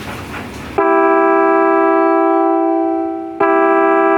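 Mitsuba Dolce electric horn sounding a loud, steady organ-like chord of several notes, starting about a second in. It sags slightly, breaks and blasts again at full level about three and a half seconds in, as its echo function is tried.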